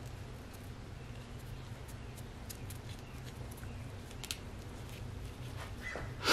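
A few faint, sharp clicks of small valve-block parts and O-rings being handled with hand tools, over a steady low hum.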